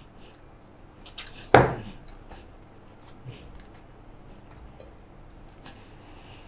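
Hands kneading and pressing a sticky semolina dough on a ceramic plate: soft squishing and handling with light clicks, and one louder knock about a second and a half in.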